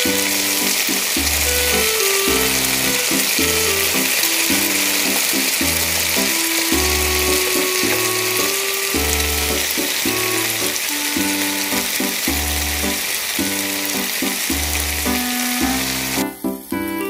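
Garlic, ginger and stir-fry vegetables sizzling steadily in hot oil in a nonstick wok. The sizzle stops abruptly about a second before the end. Background keyboard music with a steady bass beat plays under it throughout.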